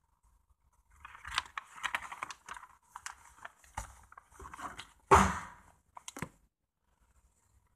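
Rustling and crinkling of jacket fabric rubbing against a handheld phone's microphone as the phone is moved about, with scattered sharp clicks and one louder rub about five seconds in.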